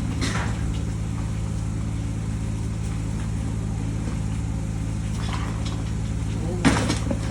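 A small engine drones steadily, with a few short scrapes and knocks of work with wet concrete over it, the loudest near the end.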